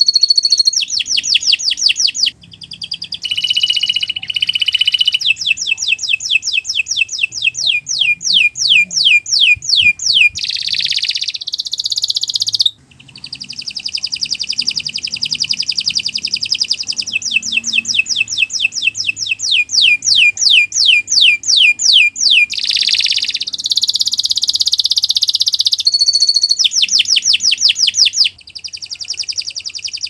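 Domestic canary singing a long, nearly unbroken song of rapid trills and buzzy rolls, with runs of quick downward-sweeping notes at about four or five a second. It pauses briefly three times.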